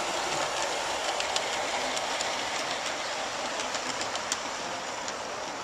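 A 16mm-scale live-steam model double Fairlie locomotive running with its coaches on a garden railway: a steady hiss with scattered sharp clicks from the wheels on the track, growing slightly fainter as the train moves away.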